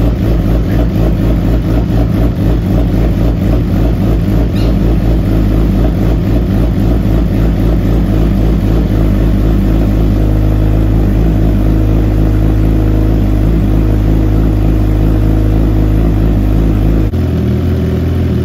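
2018 Suzuki GSX-R1000's inline-four engine idling on a cold start through a Brock's Performance full-system Penta-Carbon exhaust, a steady, loud exhaust note. Its idle note changes about a second before the end.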